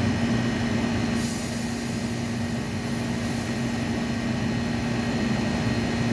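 Air-conditioning condensing unit running: a steady hum with a low drone and a clear steady tone. A thin high hiss comes in about a second in.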